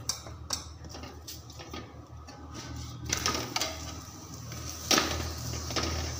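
Steel spoon scraping and tapping over a paratha on an iron tawa as ghee is spread, with the ghee sizzling on the hot griddle, louder from about three seconds in. A sharper tap of the spoon comes about five seconds in.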